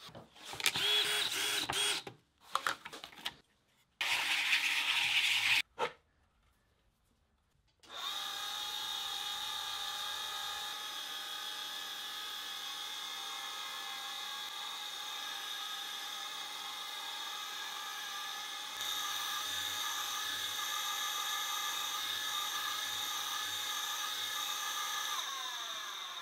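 A Deckel pantograph engraving machine running steadily, its small spinning cutter engraving a spirograph-style pattern into a block of wood. The machine starts after a few seconds of short handling sounds broken by silence, runs as a steady whir with several steady tones, grows a little louder about two-thirds of the way through, and fades out at the end.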